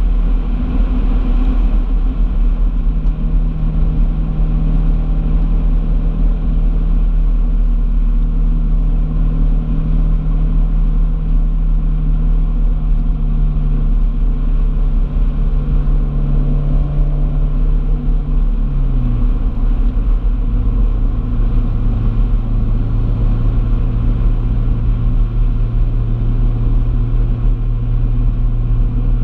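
Car driving at a steady pace: a steady engine drone over a heavy low road rumble. A little past halfway the engine note steps down to a lower steady pitch.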